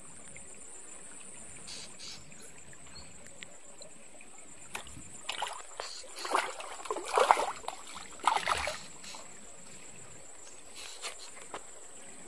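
A hooked tilapia splashing at the surface of shallow pond water in a run of irregular bursts, starting about five seconds in and stopping a few seconds later.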